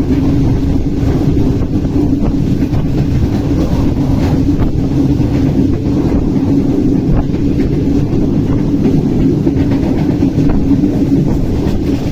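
Pakistan Railways Green Line Express train running on the track, a steady loud rumble of wheels on rails that holds without a break.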